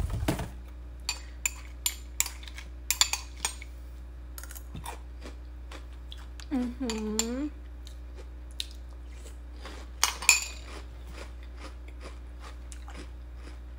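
Metal spoon clinking against a glass cereal bowl as cereal and milk are scooped, in scattered taps near the start and again about ten seconds in, with chewing of crunchy cereal. A short hummed 'mm' from the eater comes about seven seconds in.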